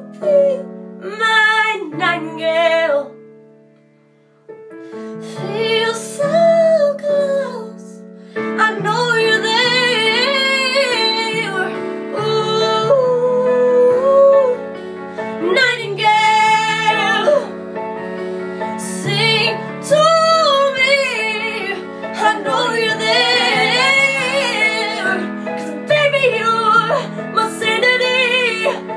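Female voice singing long, drawn-out notes with no clear words over a soft piano-like accompaniment. The music fades out briefly about three seconds in, then comes back and runs on.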